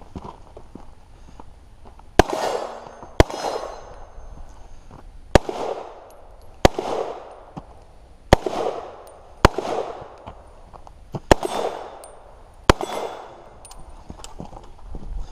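AR pistol fired eight times in slow, aimed single shots, about one to two seconds apart, each shot trailing off in a short echo.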